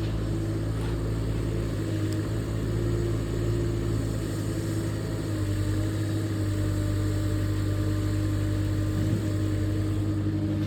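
Two-tonne LiuGong mini excavator's engine running steadily, with a held tone that wavers slightly in pitch.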